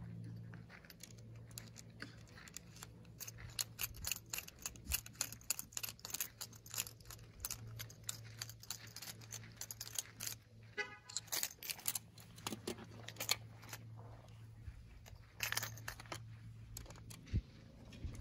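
Metal parts of a GSG AK-47 .22 LR rifle clicking and rattling as it is reassembled by hand, with a quick run of evenly spaced ticks about two-thirds of the way through. A faint steady low hum lies underneath.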